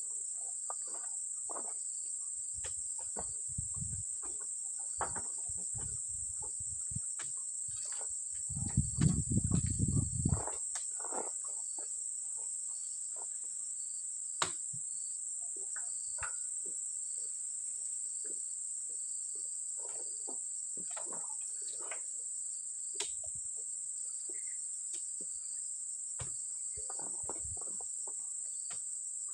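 Steady high-pitched insect drone. Scattered short knocks and thuds run through it, with a louder low rumbling burst about nine seconds in.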